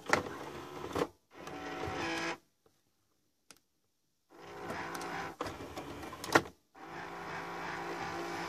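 JVC 12-disc CD changer mechanism at work as the head unit switches from tape to the changer: spurts of motorised whirring with clicks, a pause, a sharp click about six seconds in, then steady running as a disc is loaded.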